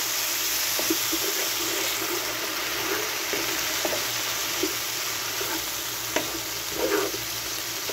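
Thick saag sizzling in a hot non-stick pan as a silicone spatula stirs it: a steady frying hiss with soft irregular scrapes and taps of the spatula against the pan.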